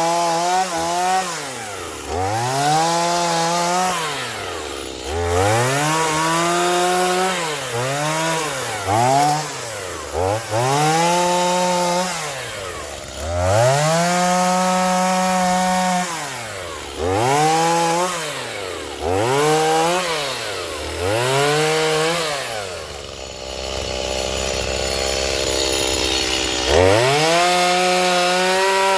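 Stihl MS210 two-stroke chainsaw revved again and again: the engine climbs to full speed, holds briefly and drops back, about ten times. It settles at a lower speed for a few seconds, then revs up once more near the end.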